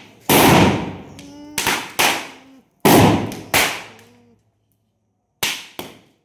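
Firecrackers bursting: seven loud, sharp bangs in an irregular string, each with a short fading tail. The biggest bangs come in the first few seconds, and two smaller ones follow near the end.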